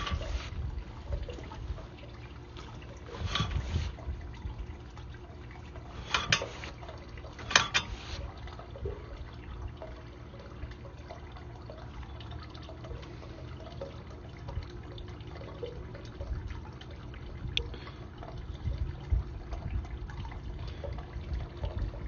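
Water trickling in a sewer line over a steady low rumble, with a few sharp knocks in the first eight seconds.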